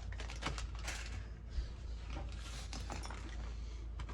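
Light handling noises: scattered small clicks and taps of parts and metal being handled, over a steady low hum.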